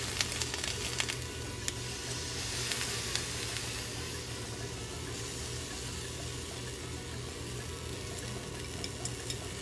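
Steady hiss of a pot of water boiling on the stove, with a few faint clicks.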